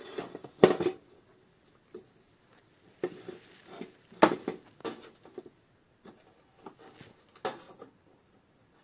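Irregular small clicks and taps of hand tools on the metal parts of an old synchronous clock's movement as a part is worked loose. The sharpest knocks come just under a second in, at about four seconds, and near the end.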